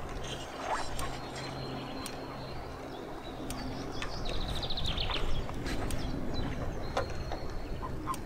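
Outdoor waterside ambience: a small songbird gives a quick high trill of about ten notes a little past four seconds in, with scattered faint chirps and a low steady hum underneath.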